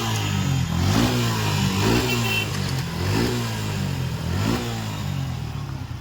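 Suzuki Gixxer single-cylinder motorcycle engine running after a new piston was fitted to cure a piston knock, its throttle blipped about once a second, five times or so, each rev rising and falling back. The engine sounds right to the mechanic, and the revving eases off near the end.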